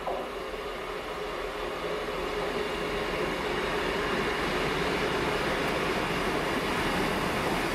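Class 158 diesel multiple unit approaching along the line, its running noise growing steadily louder as it nears.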